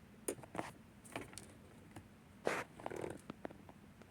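Handling noise: a few short clicks and scrapes of hands working things close to the microphone, the loudest a longer scrape about two and a half seconds in, followed by a brief rustle.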